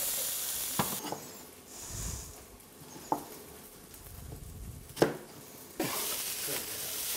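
Onions sizzling in a frying pan, the sizzle dropping away about a second in and coming back near six seconds. A few knocks and clatters fall between, the loudest about five seconds in.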